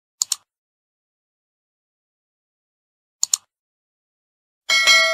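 Subscribe-animation sound effects: a quick double mouse click about a quarter second in, another double click about three seconds later, then a bright notification-bell chime starting shortly before the end.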